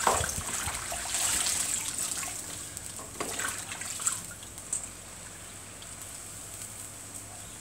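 Water trickling, louder for the first couple of seconds and then settling to a fainter steady hiss, with a few small clicks.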